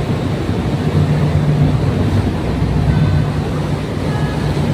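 Tugboat under way, its engines giving a steady low drone over the rushing, churning propeller wash.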